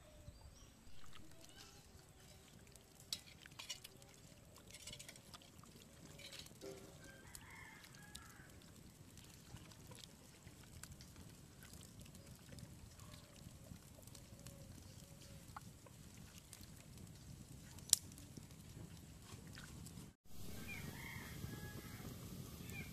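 Quiet outdoor background with faint animal calls and scattered soft clicks. About twenty seconds in, the sound cuts off and a louder steady hiss takes over.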